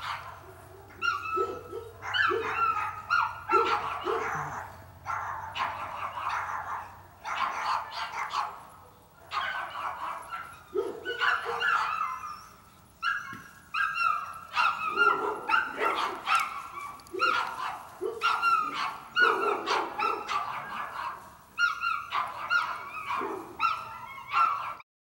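Dogs barking and yelping over and over, with short pauses between, cutting off suddenly near the end.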